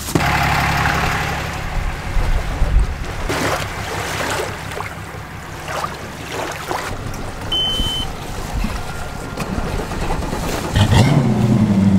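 Engine running steadily, then rising in pitch as it speeds up near the end.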